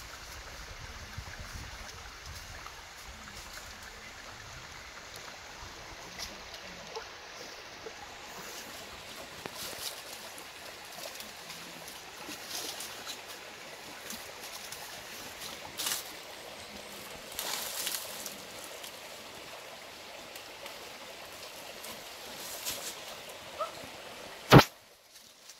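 Foliage and dry leaf litter rustling and crackling in short bursts as a barefoot person moves through forest undergrowth and handles plants, over a steady background hiss. One loud, sharp click near the end.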